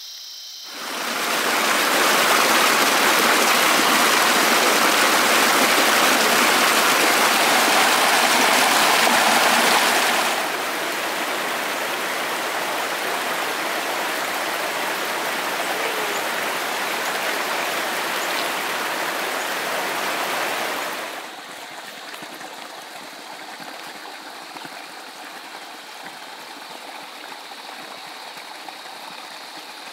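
Steady rush of running water, like a stream. It is loudest at first, then drops abruptly in level about ten seconds in and again about twenty-one seconds in.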